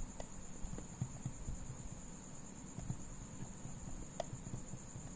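A few faint clicks from the buttons of a digital on-off timer switch, pressed to step the minutes of the on-time, over a steady high-pitched tone.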